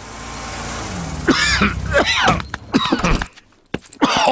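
A cartoon bear character coughing, a run of short, low, hoarse coughs from a character who has caught a cough and is ill. A hiss rises at the start, and a few sharp clicks come near the end.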